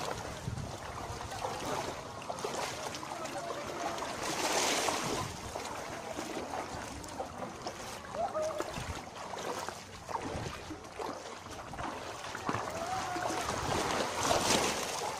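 Feet sloshing and splashing as several people wade through shallow seawater, with waves washing and wind noise on the microphone.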